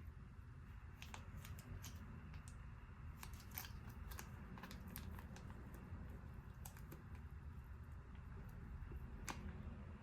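Faint, irregular small clicks and taps of food preparation in a kitchen, over a low steady hum.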